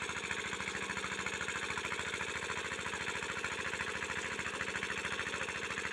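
A small engine running steadily with a fast, even beat and no change in speed.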